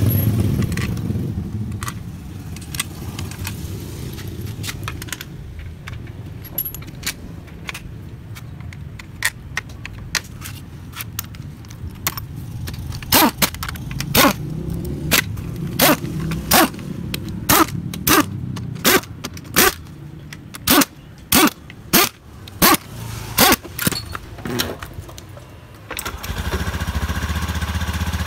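Sharp metal clicks, about one a second, while the CVT cover bolts are worked on; then about 26 s in the Honda Beat's engine starts and idles steadily, the freshly serviced CVT running smooth.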